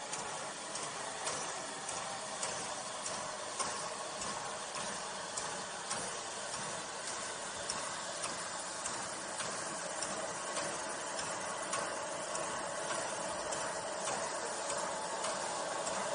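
Great Eastern Railway Y14 0-6-0 steam locomotive moving slowly, with a steady hiss of steam and light metallic clanks or clicks about once a second.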